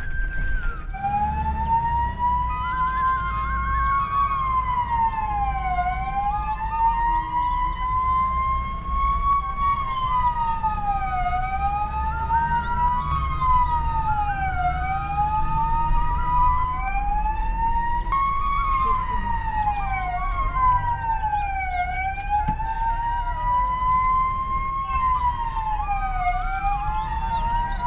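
Ambulance siren heard from inside the cab. A brief steady tone gives way to a wail that slowly rises and then falls in pitch, once every four to five seconds, over the low rumble of the engine and road.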